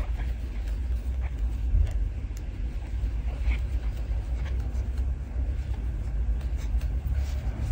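Steady low background rumble, with faint scattered ticks over it.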